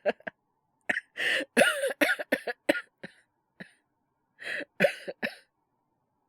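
A man's voice in a coughing fit from a bad cold, acted by a voice actor: a couple of short coughs, then a long run of coughs about one to three seconds in, a few single ones, and another cluster near the end.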